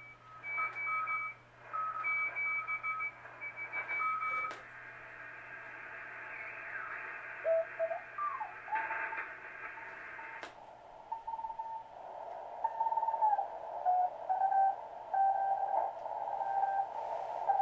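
Speaker audio of a Heathkit SB-301 shortwave receiver tuned across the band, with Morse code (CW) signals keyed on and off over band hiss. After a click about four seconds in, whistling tones slide in pitch as the dial is turned. After another click about ten seconds in, the hiss narrows and the Morse code comes through at a lower pitch of about 700 Hz through the narrow 400 Hz CW crystal filter. A steady low hum runs underneath.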